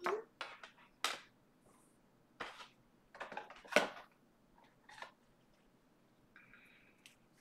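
Scattered sharp clicks and taps of objects being handled, about six over the few seconds, the loudest a second in and near the middle, followed by a brief high-pitched tone near the end.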